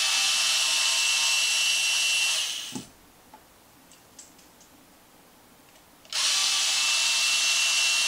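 Cordless electric screwdriver with a 2 mm hex bit running steadily with a high whine as it backs out the small pinch bolts on an RC shock absorber. It winds down about two and a half seconds in, a few light clicks of handling follow, and it starts up again at about six seconds.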